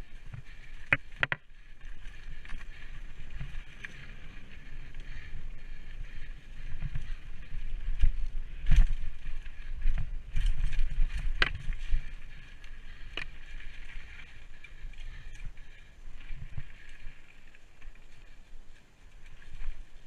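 Mountain bike being ridden along a dirt singletrack, heard from a camera on the rider: wind rumbling on the microphone under a steady hiss of tyres and drivetrain, with sharp rattles of the chain and frame over bumps and roots, loudest around the middle.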